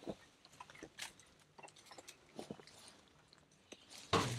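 Leafy broken tree branches rustling, with scattered light cracks and snaps of twigs, as a long-handled yard tool pushes and pulls at them. Near the end a louder steady low hum sets in suddenly.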